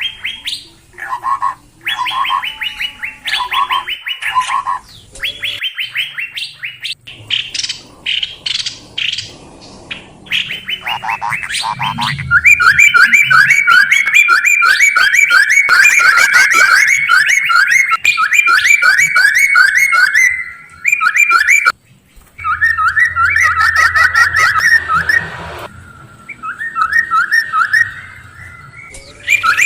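Recorded songbird call used as a lure: loud, rapid series of repeated whistled notes, broken by abrupt edits, with a long fast even run of notes from about twelve seconds in.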